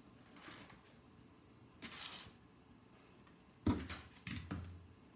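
Packing pieces being handled and set down on a table: two short rustling hisses, then a sharp knock about three and a half seconds in, the loudest sound, and a softer knock just after.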